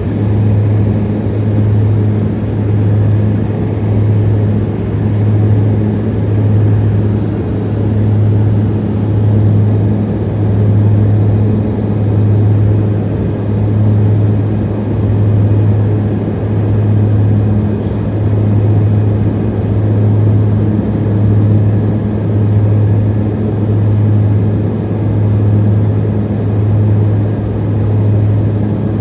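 Cabin drone of a Harbin Y-12E's twin turboprops on approach to land: a loud, steady low propeller hum that swells and fades in a slow regular beat about every second and a half.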